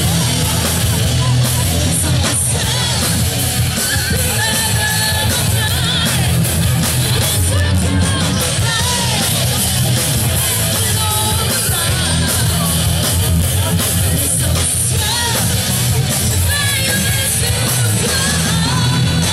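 Live rock band playing loud, with electric guitars, drums and a vocalist singing into a microphone.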